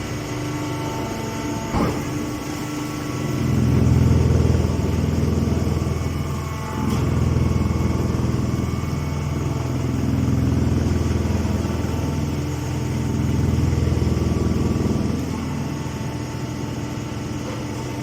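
Engine of a tractor-driven hay baler running, its low rumble swelling and easing four times, roughly every three seconds, as the machine loads up. A single sharp knock comes about two seconds in.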